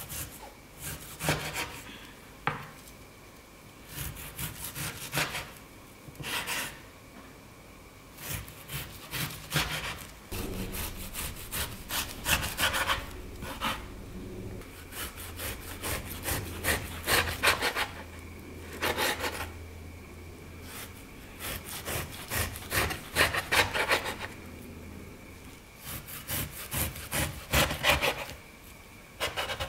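Chef's knife slicing raw beef thinly on a wooden cutting board. It comes in runs of quick strokes, each cutting through the meat and tapping the board, with short pauses between the runs.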